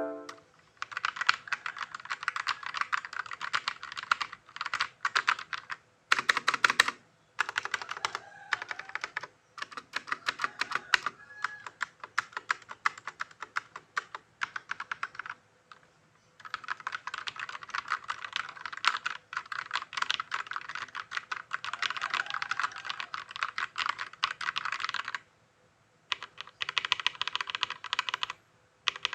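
Fast typing on a Rexus Legionnaire MX5.1 mechanical keyboard with linear red switches: a dense patter of keystrokes with no click, broken by a few brief pauses.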